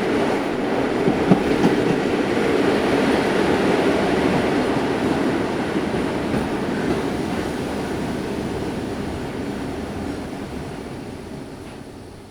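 Old train running: a steady rumble of rail noise with a few sharp clicks. It fades out gradually over the last several seconds.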